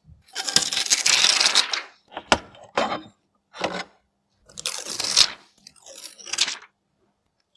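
Packaging being handled and opened: several rounds of crinkling and tearing, a long one at the start, then shorter bursts with a few sharp clicks.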